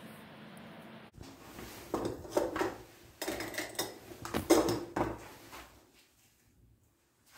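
Clinks and rattles of a stainless steel canister and a plastic dental floss container being handled in a small tiled room, a cluster of sharp knocks from about two to five seconds in.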